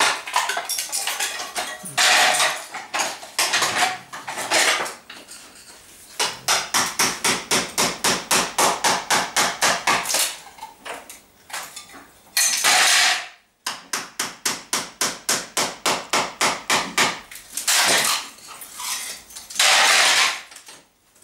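Hand hammering during demolition work: runs of rapid blows, about five a second, with short pauses between runs. A few longer, noisier bursts of breaking or scraping come in between, near the start, the middle and the end.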